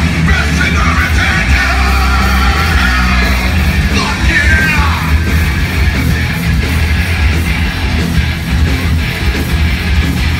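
A live heavy metal band playing loud: distorted electric guitars, bass and drums, with a singer yelling the lyrics into a microphone. The vocals drop out about halfway through while the band plays on.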